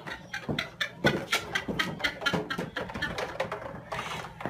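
Quick, irregular thumps and taps, a few each second, of feet going down carpeted stairs.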